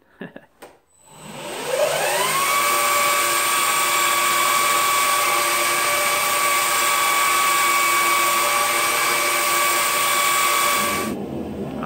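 Electric belt grinder spinning up about a second in with a rising whine, then running steadily as it grinds a mushroomed, marred piece of S7 tool steel. It cuts off shortly before the end.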